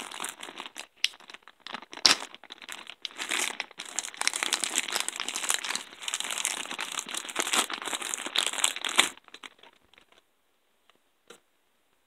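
Clear plastic packaging bag crinkling and rustling in the hands in irregular bursts, stopping about nine seconds in. One faint click near the end.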